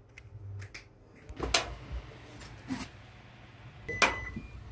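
A few knocks and clicks of a smartphone being handled and set down on a silicone work mat. About four seconds in, a rocker power switch on a workshop machine clicks on, with a short electronic beep.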